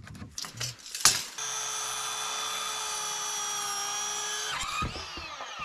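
Cordless circular saw starting with a sharp click about a second in, then running at a steady whine as it cuts through a rough-sawn board for about three seconds. Near the end the trigger is released and the blade winds down in falling pitch.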